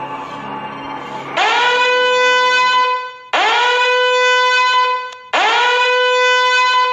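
A horn meme sound effect: three long, loud horn blasts in a row, each scooping up in pitch and then holding one steady tone. Before the first blast there is a fainter held sound.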